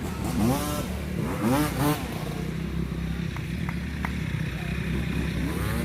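An engine runs steadily throughout, with two loud voiced shouts rising and falling in the first two seconds, then a few sharp clicks.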